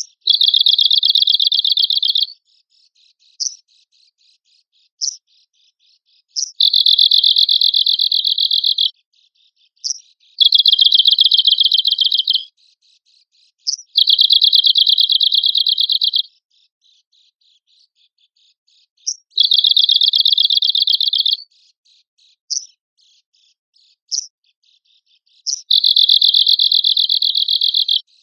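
Arctic warbler singing: six dry, rapid, high-pitched trills of about two seconds each, a few seconds apart, with short sharp single call notes in the gaps.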